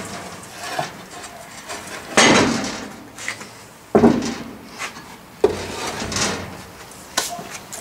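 A sand-filled round molding flask held against a wooden board is turned over and set down on the bench: a few wooden scrapes and knocks, the loudest a little over two seconds in, with sharper knocks about four and five and a half seconds in.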